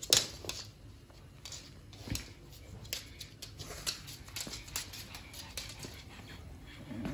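A pug's claws clicking irregularly on a wooden floor as it walks and turns about, with one sharper click at the very start.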